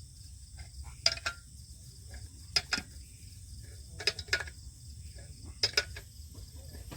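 Crickets chirring steadily in a high thin note, with sharp clicks or taps coming in pairs roughly every one and a half seconds.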